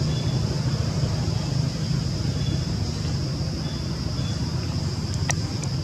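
Steady outdoor background noise: a low rumble with a thin, steady high-pitched drone over it, a few faint short chirps, and one sharp click about five seconds in.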